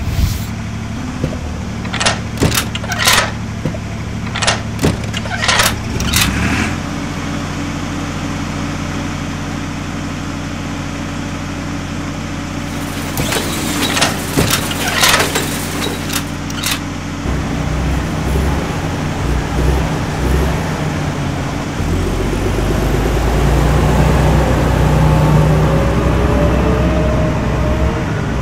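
Heavy vehicle engine sound effect running steadily, broken by clusters of sharp knocks and clanks about two to six seconds in and again around thirteen to sixteen seconds. From about seventeen seconds the engine revs up and grows louder.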